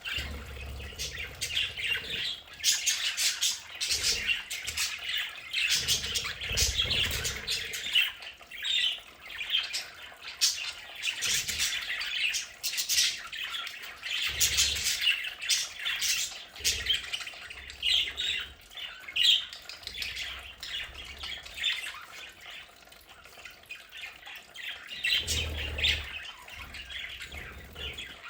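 A flock of budgerigars chattering and chirping continuously, with squawks mixed into the warbling. Occasional soft low thumps sound under the birdsong.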